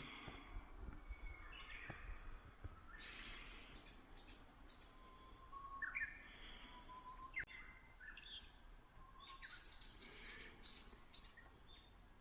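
Faint wild birdsong: scattered bursts of quick chirps, with a few short rising whistles near the middle.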